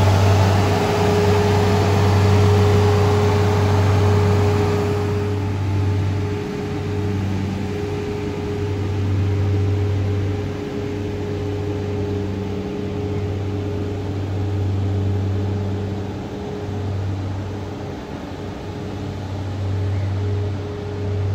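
Engine of an articulating boom lift running steadily, a loud low hum with a higher tone over it that swells and dips every few seconds. A rushing hiss over it drops away about five seconds in.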